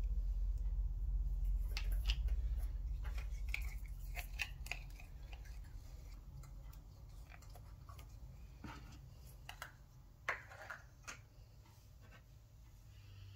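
Green slime being squeezed and poured out of a thin plastic tub: scattered soft sticky clicks, squelches and crinkles of the plastic, a few louder ones towards the end. A low rumble underneath fades out over the first few seconds.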